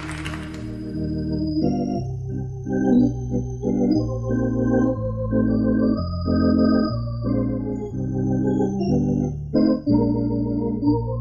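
Instrumental organ music: held low bass notes changing about once a second under a higher melody line. The last of a round of applause dies away in the first second.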